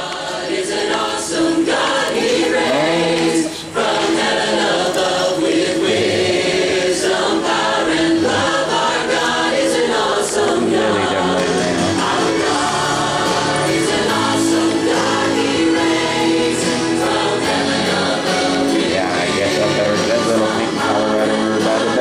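Christian music with a choir singing over an instrumental backing, playing steadily.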